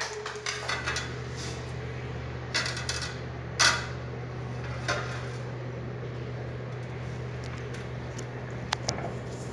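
A few scattered clinks and knocks of steel plates and a wooden chopping board being handled, the loudest about three and a half seconds in, as chopped green chillies are tipped from the board onto a steel plate. A steady low hum runs underneath.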